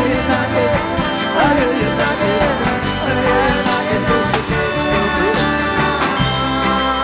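Live rock band from a soundboard recording: acoustic and electric guitars, bass and drums playing on, with a gliding melodic line over them and no lyrics sung.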